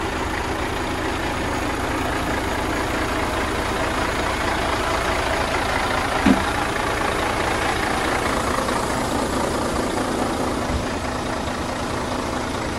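Diesel engine of a Mercedes-Benz Actros concrete pump truck running steadily, with one short knock about six seconds in.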